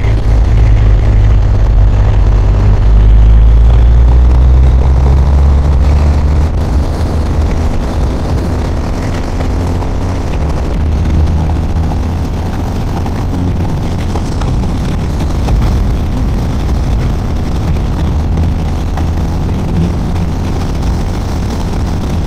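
BMW R1250 RS's boxer-twin engine running under way, with wind and road noise. The deep engine hum is loudest over the first few seconds, then eases to a steady cruise.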